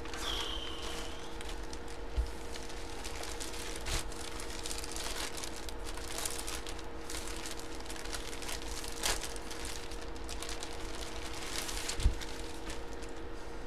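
Clear plastic packaging crinkling and rustling as it is handled, with a few dull knocks, the sharpest near the end. A faint steady hum runs underneath.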